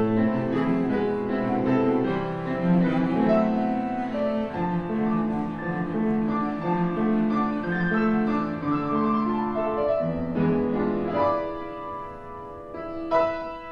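Background instrumental music of bowed strings and piano, playing slow, long-held notes.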